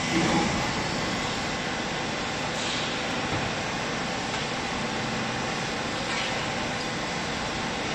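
Vertical hydraulic clothes baler running: a steady mechanical drone from its hydraulic pump and motor, with a short knock right at the start.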